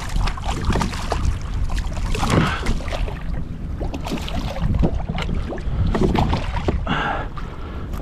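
Hooked striped bass thrashing and splashing at the water's surface beside a kayak, in short irregular splashes over low wind rumble.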